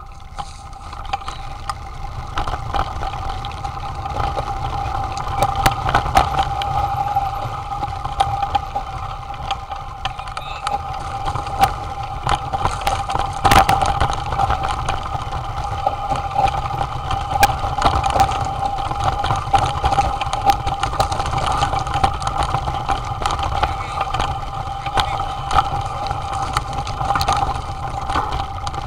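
Bike descending a rough, rocky dirt trail, heard from a camera mounted on it: a constant rumble of wind and tyres with a steady hum, broken by frequent sharp knocks and rattles as it goes over stones.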